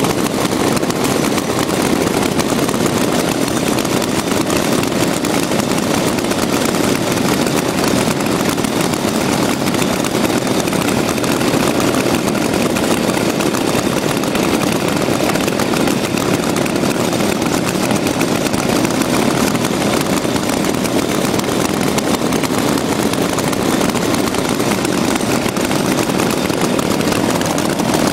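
Old chainsaw engine running loud and steady at an even speed, without revving up or down.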